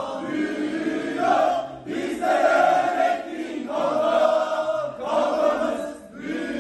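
A group of people singing a song together in unison, in held phrases with brief breaks between them.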